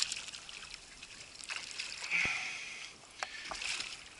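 Water splashing and sloshing as a snapper is scooped up in a landing net and lifted out of the sea, with a few separate splashes, the loudest about two seconds in, and a couple of sharp knocks near the end.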